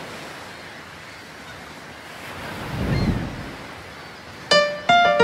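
Ocean surf washing in, one wave swelling and breaking about three seconds in. Near the end, music starts with a few separate struck notes.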